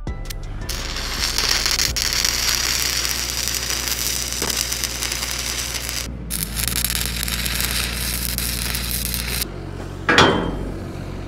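Stick welding arc crackling and sizzling as a steel door frame is tacked into a shipping container wall, in two runs with a short break about six seconds in, over a steady low hum. A single loud metallic clank comes after the arc stops, near the end.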